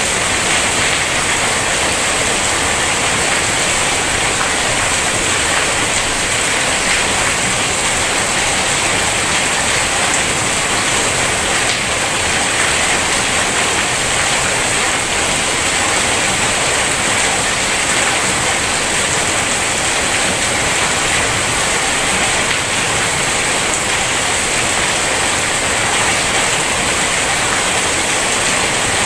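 Heavy rain falling in a steady, dense hiss that does not let up.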